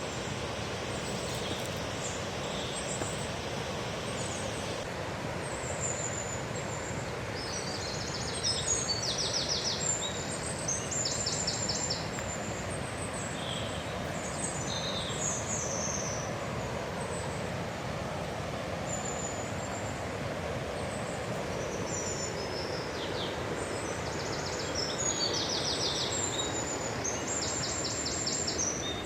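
Songbirds chirping and calling, with rapid high trills now and then, over a steady rushing background noise.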